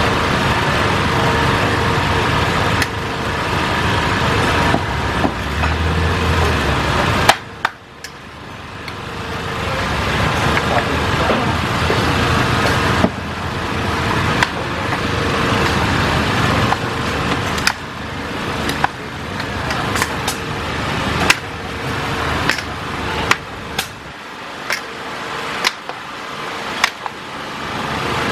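A metal spatula and ladle scrape and knock against a large steel wok as fried rice vermicelli is stirred and tossed. The sharp clacks come roughly once a second in the second half, over a steady roaring noise.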